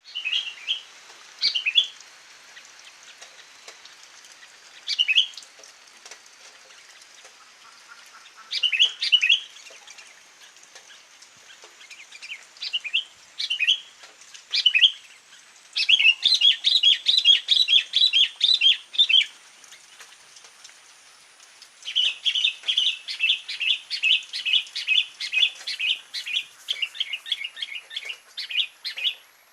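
Sooty-headed bulbul (kutilang) singing in short chirpy phrases every few seconds, breaking twice into long, fast chattering runs.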